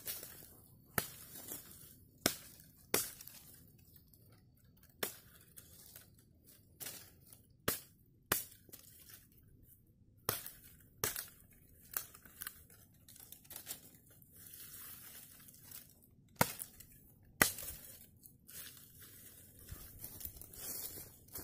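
Machete chopping thin woody stems and dry brush: sharp, separate chops at an uneven pace, roughly one a second, with rustling and snapping of dry branches between.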